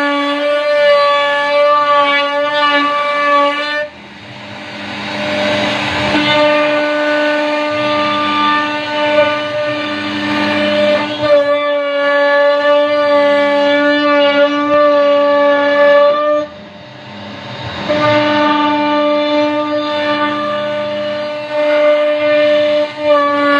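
CNC router spindle whining steadily at high speed while cutting wood. The whine dips out twice, about 4 and 16 seconds in, and a rougher hiss swells for a moment each time before the steady tone returns.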